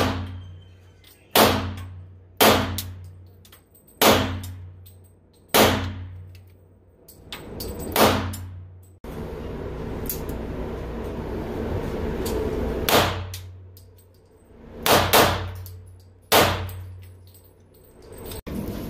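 Semi-automatic pistol firing in an indoor shooting range: about ten single shots spaced one to two seconds apart, each ringing off the range walls, with two shots in quick succession near the end.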